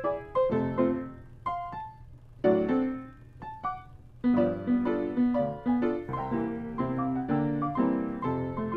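Background piano music, a melody of separate struck notes. It thins to a few sparse notes about two seconds in, then picks up again with fuller chords.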